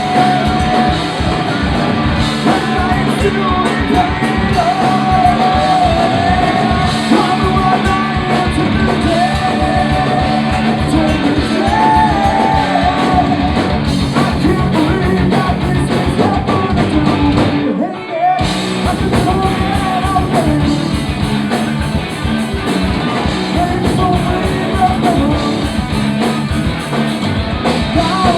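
Live punk rock band playing loud, with sung and shouted lead vocals over the full band. About two-thirds of the way through, the band stops dead for a split second and then crashes back in.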